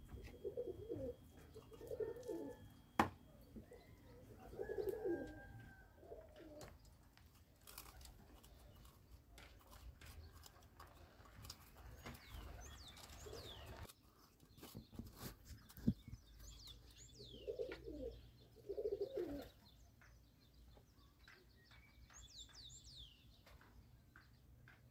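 Doves cooing faintly in short repeated phrases, a few times, with some thin high chirps from small birds. Two sharp clinks, about 3 s and 16 s in, are the loudest sounds, with softer handling clicks between.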